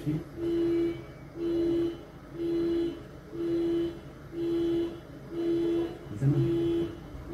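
A car horn sounding in even half-second blasts about once a second, the steady on-off pattern of a car alarm going off.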